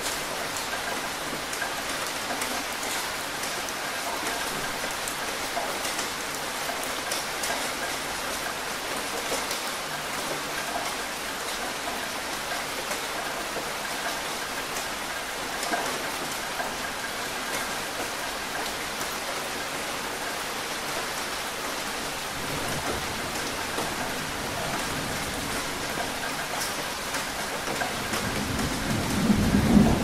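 Steady rain falling, an even hiss with scattered drop patter. Over the last several seconds a low rumble of thunder builds, loudest at the very end.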